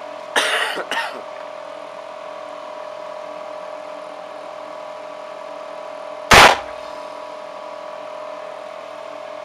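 .44 Magnum revolver firing a single loud shot about six seconds in, over a steady hum. A shorter, quieter burst of noise comes about half a second in.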